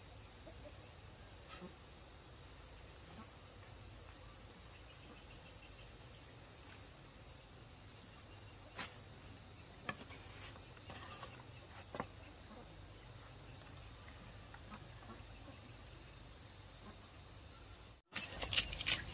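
Insects, likely crickets, trilling steadily at one high pitch, with a few faint taps. Near the end the sound drops out for an instant, followed by a quick run of louder knocks.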